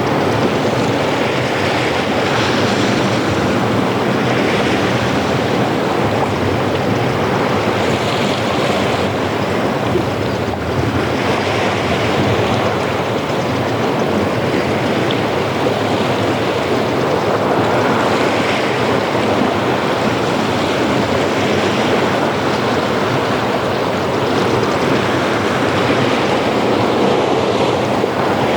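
Ocean surf breaking on a beach: a continuous rush of waves that swells and eases every few seconds.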